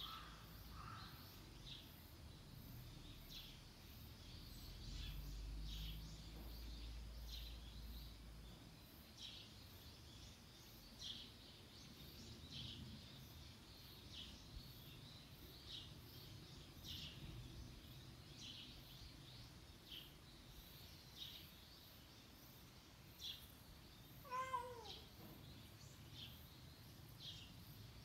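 Mostly quiet outdoor background with faint, high, short chirps repeating about once a second. About twenty-four seconds in, a cat gives one short meow that falls in pitch.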